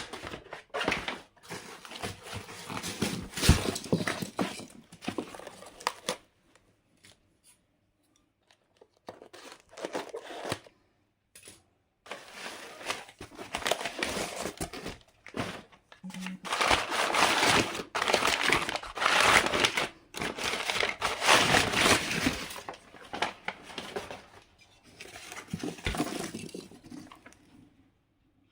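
Packaging crinkling and tearing as it is unwrapped, in irregular bursts with short pauses between them.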